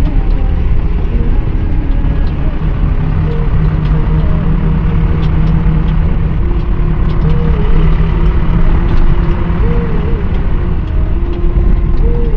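Vehicle driving, heard from inside the cab: a loud, steady low rumble of engine and road noise, with occasional light clicks.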